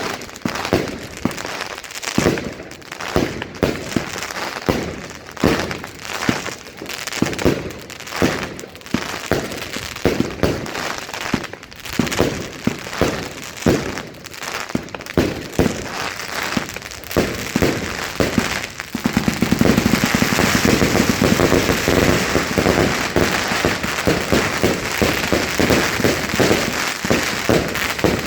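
Wolff Jackhammer firework going off: sharp bangs about two a second, then, about 19 seconds in, a dense, rapid rattle of reports that runs on continuously.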